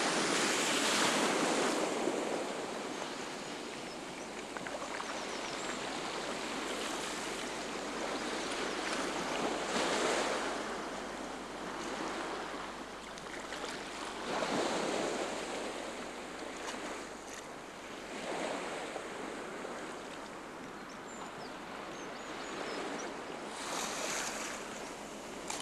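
Sea waves breaking and washing in on the shore, rising in several surges a few seconds apart, the loudest about a second in.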